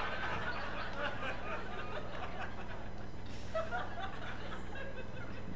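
Scattered quiet chuckles and murmurs from a comedy club audience, over a low steady hum.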